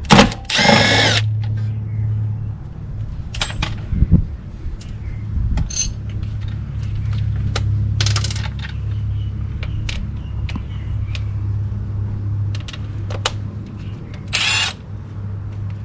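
A cordless power tool whirs in two short bursts, about a second long near the start and half a second near the end, running out the bolts of the ABS sensor mount. Scattered metal clinks of tools and bolts fall between the bursts, over a steady low hum.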